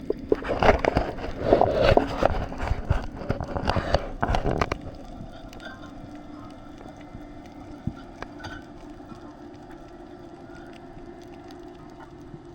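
Water splashing and bubbling loudly and unevenly for about five seconds as a spearfisher goes under, then a steady, quieter underwater hum.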